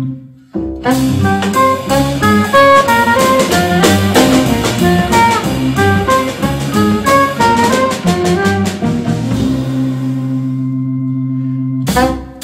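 Live organ-groove jazz from a quartet of saxophone, organ, double bass and drum kit. After a held chord and a short break near the start, the band plays a busy passage of quick melodic notes over the drums. About nine and a half seconds in, this gives way to a long held chord with no drums, and the drums come back in right at the end.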